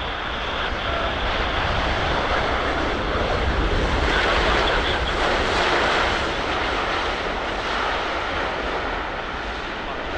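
Jet engines of a Boeing 787-9 Dreamliner passing on its landing arrival, a steady roar that swells to its loudest about halfway and then eases off slightly.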